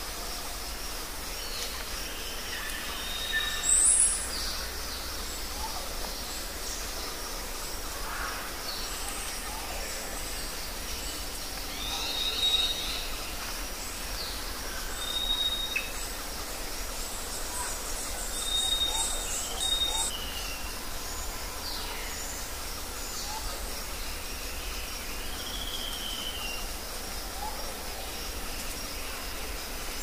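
Woodland ambience: a steady background hiss with scattered short, high bird whistles and chirps. The loudest calls come about four seconds in and again around twenty seconds, and one call falls in pitch near the end.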